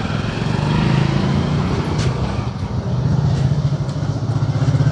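A steady low engine hum, with a single sharp click about two seconds in.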